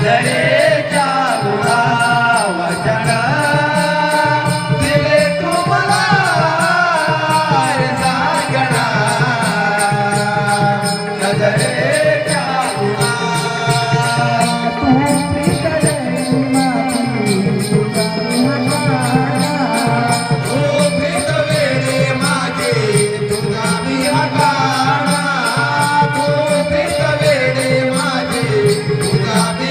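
A song: a voice sings an ornamented, gliding melody over instrumental accompaniment with a steady, even beat.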